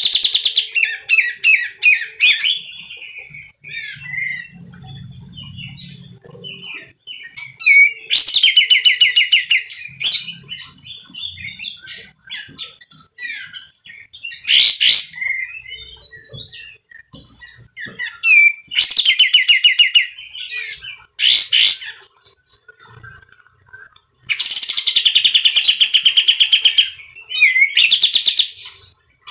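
Male olive-winged bulbul (kapas tembak) singing in full voice: loud, harsh, rapidly rattling phrases in bursts a few seconds apart, with softer calls in between and the longest phrase near the end.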